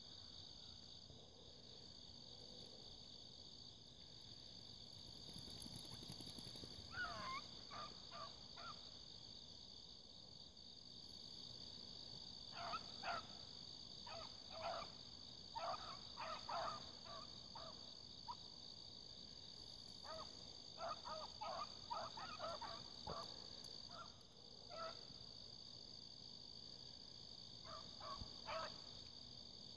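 Hounds running in the distance, barking faintly in short bouts every few seconds, over a steady chorus of crickets and other insects.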